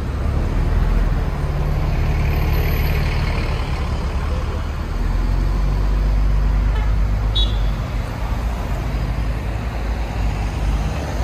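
Close city street traffic: a bus engine running alongside with a low steady drone, and cars driving past. A brief high squeak comes about seven seconds in.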